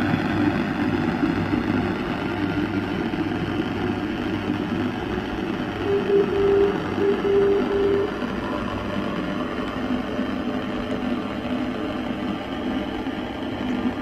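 Longwave radio static and hiss from a homemade regenerative receiver, played through a small computer speaker, with a steady low hum. About six seconds in, a tone keyed on and off in Morse dots and dashes comes through for two seconds: the identifier of a non-directional navigation beacon (NDB).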